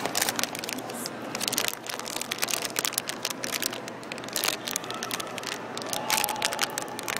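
Packaging of a vinyl-figure blind box being torn open and handled: a busy run of crinkling, crackling and crunching from the cardboard box and the foil wrapper inside.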